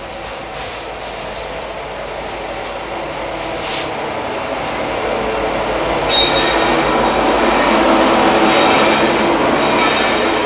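Freight train rolling past and growing louder, its steel wheels squealing on the rail in high ringing tones from about halfway through.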